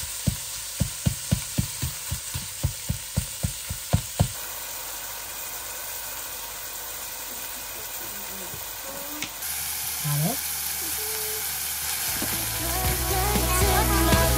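A spatula chops and presses ground pork and beef in a frying pan, knocking about four times a second. About four seconds in the knocking stops and the meat sizzles steadily as it browns. Background music comes in near the end.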